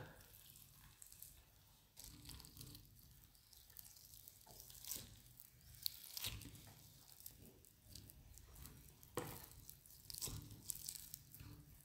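Faint, irregular tearing as the skin of a leg of ham is peeled by hand away from the fat underneath.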